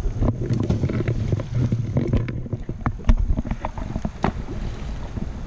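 Camera handling noise: a low rumble with scattered knocks and clicks as the camera is moved.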